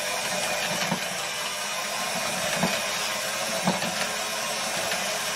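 Hand-held electric mixer running steadily, its beaters whisking a thin Yorkshire pudding batter, with a few sharp knocks.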